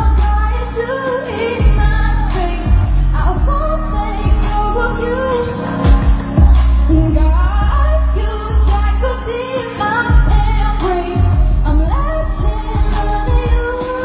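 A female singer singing live into a microphone over an amplified pop backing track with a heavy bass line.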